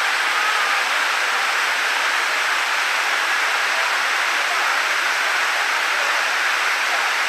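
Benton Falls waterfall pouring: a steady, even rush of falling water.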